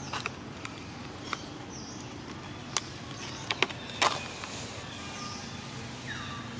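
Outdoor background sound: a steady low rumble with scattered sharp clicks, loudest around the middle, and a few brief high chirps that fall in pitch, one about a second before the end.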